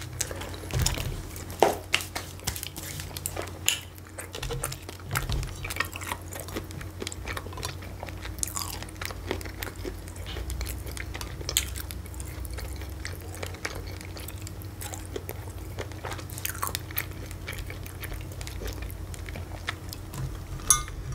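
A person chewing and biting food close to the microphone, with irregular mouth clicks and crunches throughout, over a faint steady low hum.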